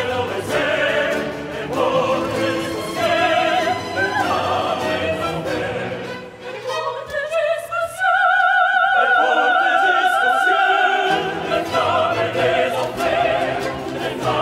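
Baroque opera music performed live by orchestra and choir. About six seconds in the bass drops out and high notes with a wide vibrato are held, before the full ensemble comes back in about eleven seconds in.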